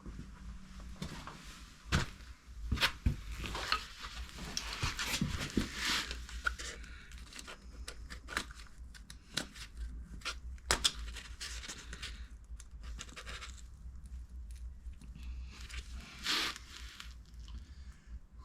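A hand tool scraping and clicking against small metal parts as the old sump-plug washer is worked off. Irregular sharp knocks, the loudest about 2, 3 and 11 seconds in, come between stretches of scraping.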